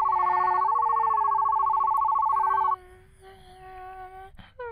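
Mouth imitation of a Tokyu 8500 series train at a station. A loud, fast-pulsing two-tone ringing sounds over a sustained hummed tone and cuts off abruptly a little under three seconds in. The hum carries on alone, with a few short vocal glides near the end.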